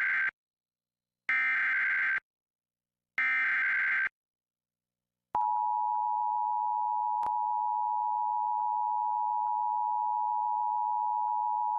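Emergency Alert System SAME data bursts: three short digital screeches of about a second each with silent gaps, the header of a new alert. About five seconds in, the steady two-tone EAS attention signal starts and holds.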